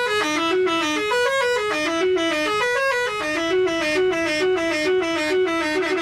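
Bus "telolet" musical air horn playing a quick tune of short notes that step up and down in pitch without a break.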